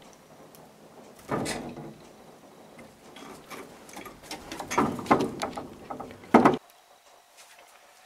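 Knocks and clattering of a wooden slatted window blind as a cat lunges at a small bird on the windowsill behind it. A sharp knock comes about a second in, then a flurry of rattling knocks builds over the middle, with the loudest just before it cuts off suddenly.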